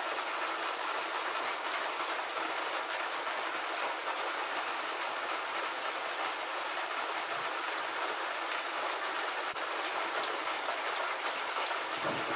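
Steady, even hiss with faint scattered ticks and no distinct tool strikes.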